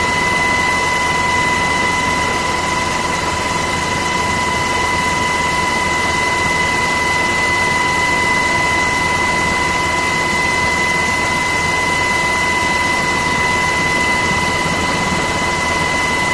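Turbine aircraft engine noise: a loud, even rush with a steady high-pitched whine that does not change.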